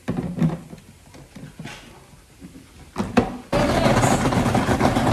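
Plastic knocks as the pusher is set into the feed chute of a Breville Sous Chef 16 Peel & Dice food processor. About three and a half seconds in, the motor starts suddenly and runs loudly, with potato chunks tumbling in the bowl during peeling.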